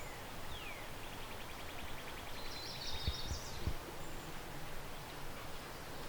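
Wild birds chirping over a steady outdoor hiss: a short downward whistle near the start, then a fast trill of repeated notes, then a brighter, higher burst of song about halfway through. A couple of low thumps sound around the middle.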